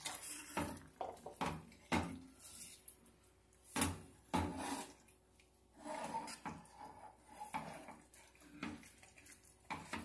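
Spatula stirring a wet eggplant curry in a kadhai: a string of irregular knocks and scrapes against the pan.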